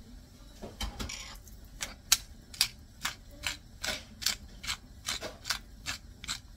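Hand-twisted pepper mill grinding black pepper over raw chicken: a run of about a dozen short grinding strokes, roughly two a second, starting under a second in.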